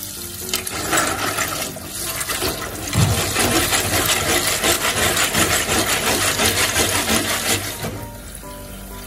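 Water splashing and running while a batch of ốc viết sea snails is rinsed of sand in a basin, the shells clattering against each other. It grows louder about three seconds in and eases off near the end.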